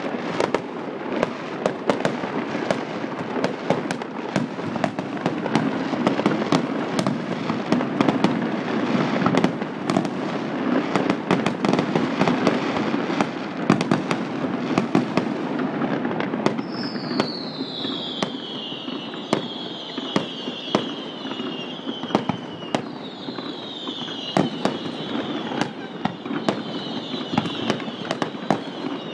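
Fireworks going off in a dense, continuous run of sharp bangs and crackles over a steady din. From about halfway, high whistles that fall in pitch join in several times.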